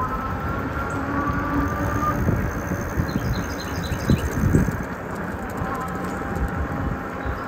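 Jasion e-bike riding along a road: wind buffeting the microphone and road rumble, with a thin whine from the motor that slowly rises in pitch.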